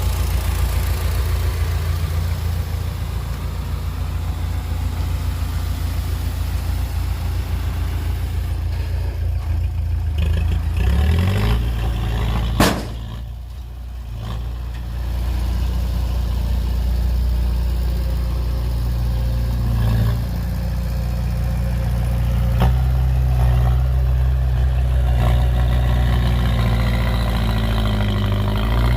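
Heavy diesel engine of an earthmoving machine running steadily, rising in pitch about eleven seconds in. A single sharp knock about two seconds later is followed by a short dip in level, and then the engine settles back to a steady run.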